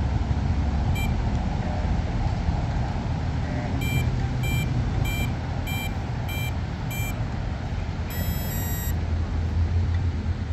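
Radio-control gear on a model plane beeping: a single beep about a second in, then six evenly spaced beeps a little over half a second apart, then a short buzzy multi-tone beep, the kind of status tones given as the electronics are powered and armed. A steady low rumble runs underneath.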